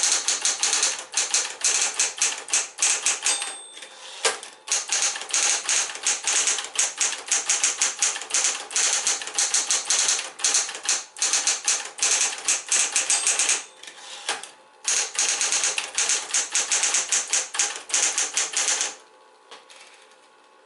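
Smith-Corona Electra 120 electric portable typewriter being typed on fast, a dense run of sharp key strikes with two brief pauses. The typing stops near the end, leaving the machine's motor humming faintly.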